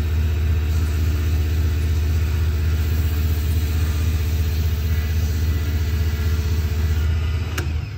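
Small benchtop wood lathe's motor running with a steady hum while folded sandpaper rubs against the spinning wooden pen blank, adding a hiss. Near the end there is a click and the sound falls away as the lathe is switched off.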